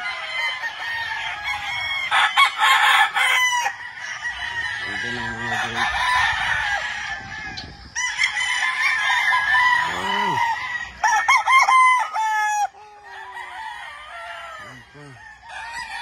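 Several gamefowl roosters crowing one after another, their long crows overlapping. A run of short, sharp calls comes about two-thirds of the way through, and it grows quieter near the end.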